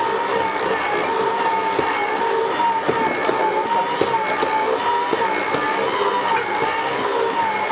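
Electric stand mixer running steadily with a high motor whine whose pitch wavers slightly about once a second, as its flat beater mixes a soft, wet yeast dough in a stainless steel bowl. Small ticks and knocks come from the beater working the dough against the bowl.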